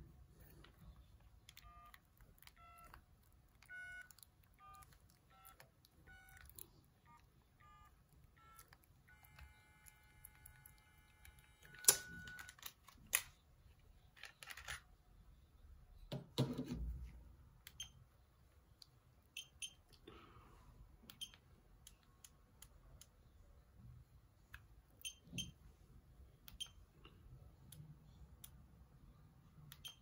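Sony CMD-Z5 mobile phone sounding a beeping ringtone melody: short tones of changing pitch, then a held tone that stops about twelve seconds in. Knocks and thumps of the phone being handled follow, then scattered light clicks.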